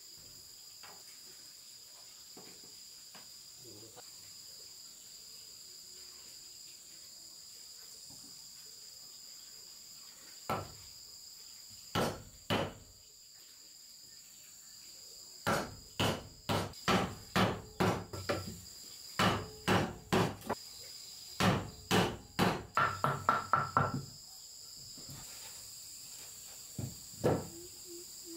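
A steel chisel driven into a wooden beam by blows from a hand-held block of wood, cutting a notch: a few sharp knocks, then a run of blows about two a second with a quicker flurry near the end. A steady high-pitched insect drone carries on throughout.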